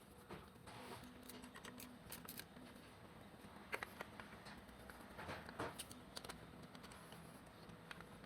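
Faint, scattered light clicks and taps of tools or small engine parts being handled during a workshop teardown, over a low steady hum.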